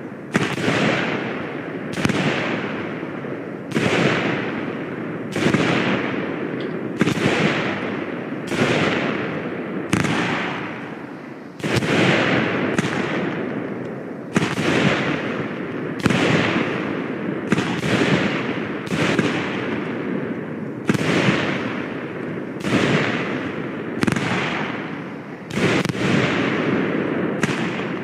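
Consumer New Year's fireworks, likely a battery cake, firing a steady series of bangs roughly every second and a half. Each bang fades away over about a second before the next.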